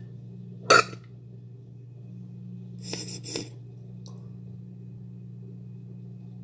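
A person lets out one sharp, loud burst of breath into the hand about a second in, like a sneeze or cough, then two short breaths around three seconds in, over a steady low hum.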